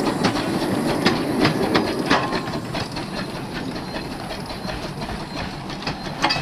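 A 15-inch-gauge steam locomotive moving slowly off a turntable, its wheels clicking and knocking over the rail joints, with some steam hiss. The clicking thins out after about two seconds as it draws away, and a single sharp knock comes near the end.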